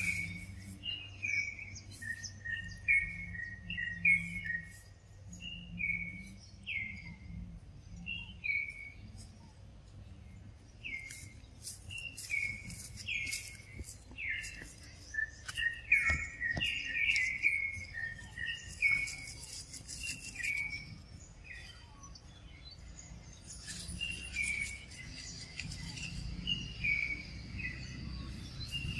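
A songbird repeating short, downward-sliding chirps in runs, about two a second, with pauses now and then, along with scattered sharp clicks.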